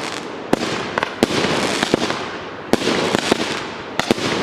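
Fireworks salute going off: a handful of sharp bangs at uneven intervals, two of them close together near the end, over a continuous crackling rumble.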